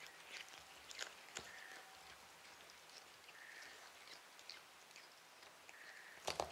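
Cats biting and chewing fresh cat grass: faint, scattered crisp crunches and clicks, with a louder cluster of them near the end.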